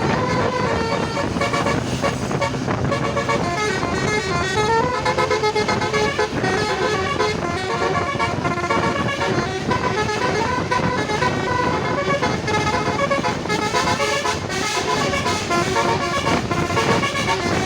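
Basuri telolet multi-tone bus horn playing a continuous tune of short, stepping notes over a steady low rumble.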